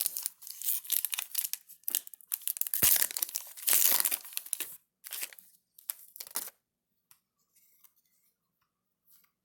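Foil trading-card pack wrapper and cards crinkling and rustling in the hands in a run of uneven bursts, stopping about two-thirds of the way through.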